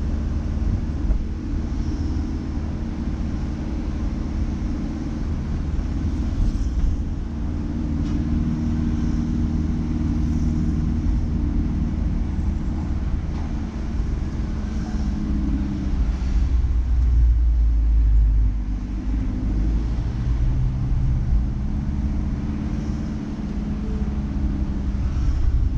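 Car engine and road rumble heard from inside the cabin while driving through city traffic, the engine note shifting up and down with speed; the low rumble is loudest about two-thirds of the way through.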